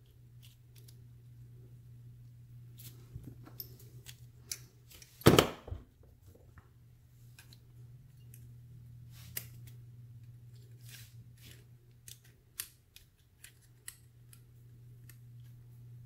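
Small metallic clicks and snips of a pair of pliers fitting a retaining ring back onto a brass Euro cylinder lock, with one louder knock about five seconds in. A steady low hum runs underneath.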